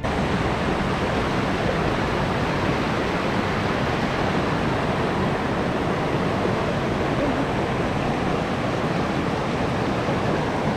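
Shallow river water rushing steadily over rocks and a low weir spillway: an even, unbroken rush.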